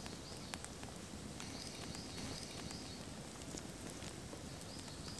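Wood campfire crackling, with sharp scattered pops. A small bird repeats a short, high, arched note a few times a second, in two runs: one from about a second and a half in, and another near the end.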